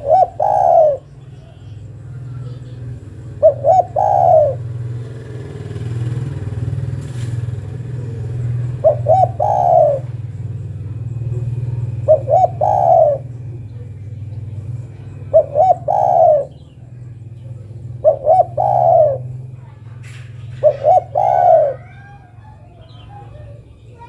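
Spotted dove giving its coo-croo-crooo call about seven times, a few seconds apart: two short notes and then a longer falling one. It is billed as a female calling to a male. A steady low hum runs underneath.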